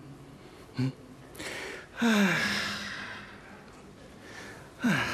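A man's wordless vocal sounds: a short voiced grunt about a second in, then a loud breathy sigh falling in pitch about two seconds in that trails away, and another falling vocal sound near the end.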